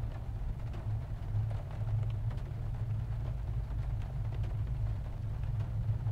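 A low, steady rumble with faint scattered ticks above it.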